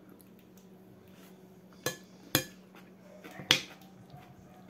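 Metal spoon clinking against a dinner plate three times while scooping food, the third clink the loudest, over a faint steady hum.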